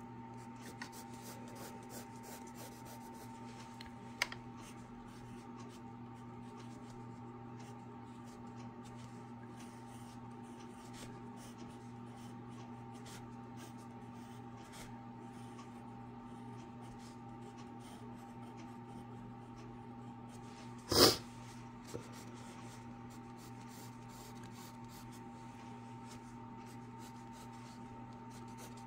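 Graphite pencil scratching on sketchbook paper in short strokes as letters and lines are drawn, over a steady low hum. One brief, loud noise about two-thirds of the way through.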